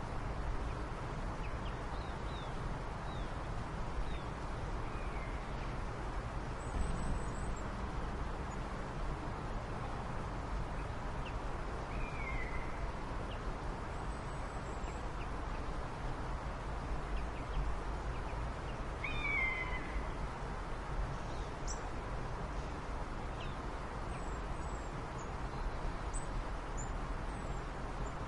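Steady background hiss and low rumble, with scattered short animal calls: faint high chirps and a few brief falling calls, the clearest near the middle and about two-thirds of the way through.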